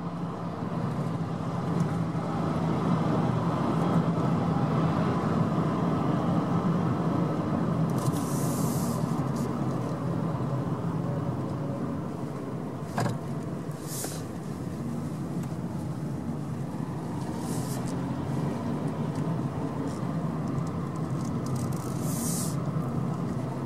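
Car driving at low speed, heard from inside the cabin: a steady engine and road hum, with a few brief hissing swells over it.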